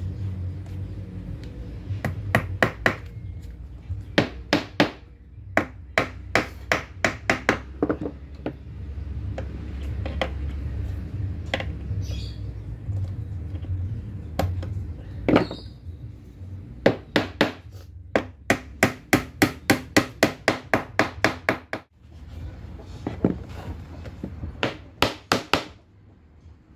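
Steel hammer driving small nails into the vinyl-covered edge of a table frame: light, sharp blows, some single and some in quick runs of about four a second, with pauses between.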